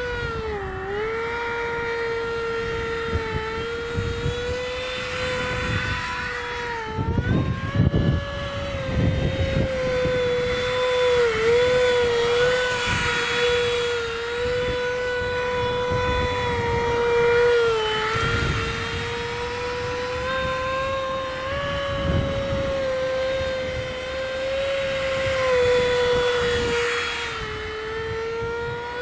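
Electric ducted fan of an RC model, a DF-55 fan on a 4200KV motor, whining steadily at high revs, its pitch dipping briefly now and then as the throttle or distance changes. Gusts of wind rumble on the microphone, strongest about seven to nine seconds in.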